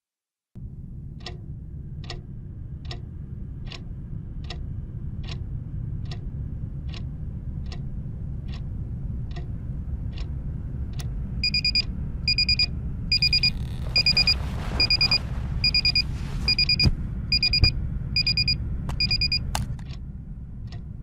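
Bedside alarm clock ticking steadily, about one tick every 0.8 s, over a low steady hum. About halfway through it starts beeping in short electronic pulses, roughly one and a half a second, and is switched off with a click near the end.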